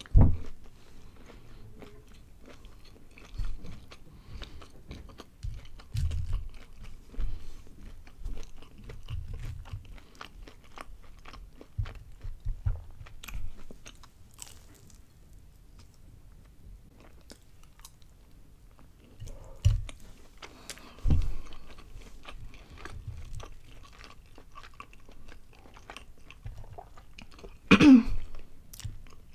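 Close-up chewing and biting of breaded mozzarella sticks: many small crisp crunches of the fried crumb crust over soft chewing, with a louder mouth sound at the start and another near the end.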